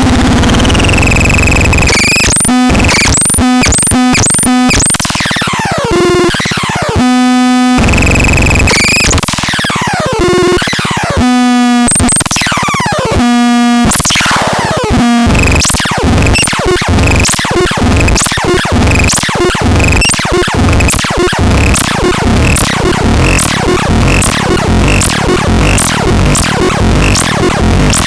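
Loud electronic synthesized sound effects: sweeping zaps that glide up and down in pitch and short pitched tones, changing to a fast, even electronic beat about halfway through.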